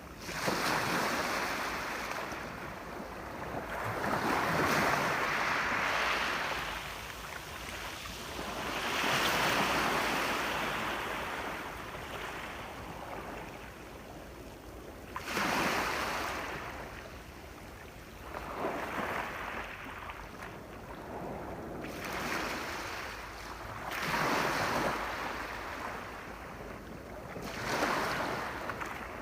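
Sea waves breaking and washing up on a shore, about seven surges that swell and fade every few seconds.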